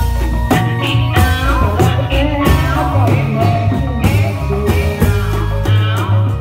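Loud music playing for a Reog Indramayu dance: a singing voice over a steady, repeating bass beat.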